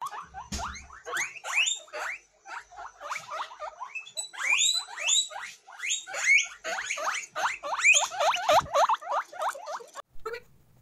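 Several guinea pigs wheeking: quick overlapping runs of high, upward-sliding squeals, several a second, that stop about ten seconds in.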